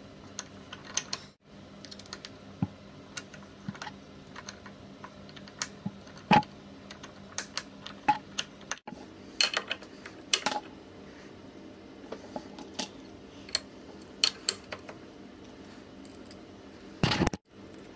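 Irregular light clicks and taps of small screws and a hex key being handled and turned against the metal bracket of an electric scooter's rear suspension mount. Two sharper knocks stand out, about six seconds in and near the end.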